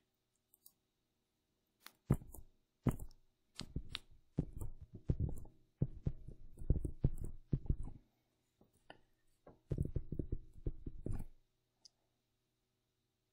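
Stylus tapping and scratching on a tablet while writing by hand, in dull knocking strokes. There are two single taps, then a busy run of strokes in the middle and a shorter run near the end.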